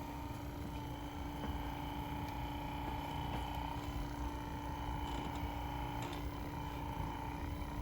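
Handheld percussion massage gun running with a steady motor whine over a low buzz; the pitch sags briefly several times as it is pressed into the muscle.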